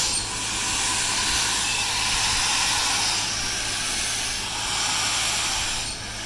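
BR Standard Class 4 tank engine 80151 blowing off steam from its open cylinder drain cocks: a loud, steady hiss that swells and eases, dropping off near the end.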